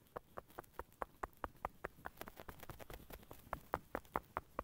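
Fingertips tapping rapidly on the top of a person's head: a quick, even patter of light taps, about six a second.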